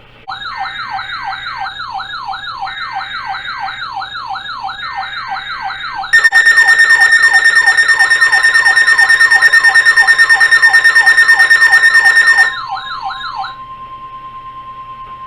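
Electronic emergency alert tones: a siren-like tone sweeping up and down about three times a second. A loud, shrill steady tone joins it about six seconds in and stops about six seconds later. Near the end the sweep gives way to a quieter steady tone.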